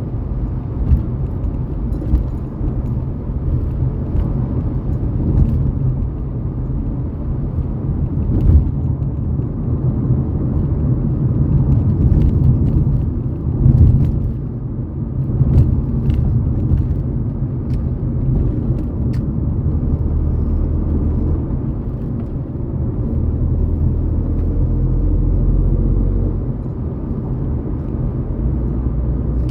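Ford Fiesta EcoBoost car running: a steady low engine and exhaust rumble that swells and eases, with a few short sharp clicks or pops scattered through it.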